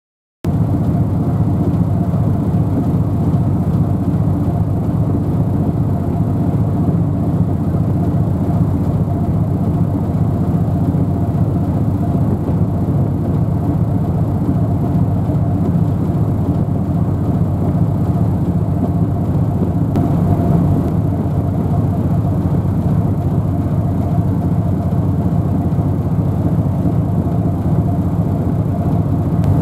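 Steady low engine rumble with a faint hum over it. It cuts in just after the start and stays unchanged.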